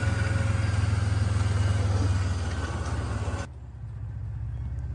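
Toyota Tacoma rock crawler's engine running at low revs as the truck crawls over boulders, with a steady low pulse. About three and a half seconds in the sound switches abruptly to a quieter, duller take of the same engine, with the hiss above it gone.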